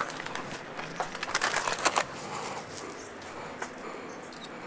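Light clicks and rustling of clothing and gear as the rider gets off the scooter, then footsteps on the concrete, growing quieter after about two seconds.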